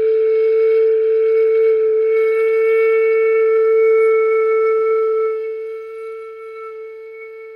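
Flute headjoint blown on its own with the open end plugged by the hand, sounding one long steady note held for about eight seconds. There is breathy air noise along with the tone at first, and the note softens from about five seconds in.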